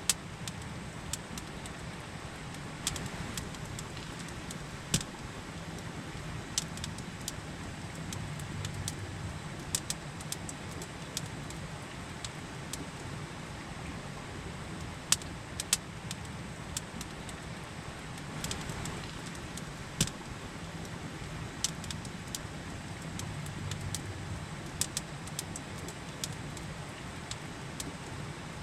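Campfire crackling with irregular sharp pops, about one every second or two, over the steady rush of a river.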